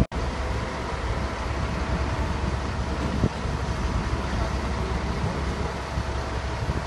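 Steady low rumble of running engines, with a single knock about three seconds in.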